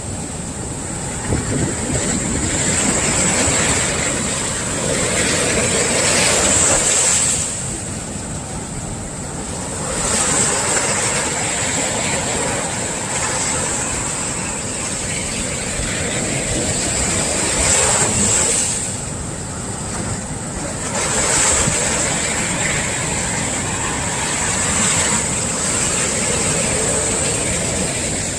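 Sea swell waves breaking on the shore, a steady hiss of surf that surges and falls back every several seconds.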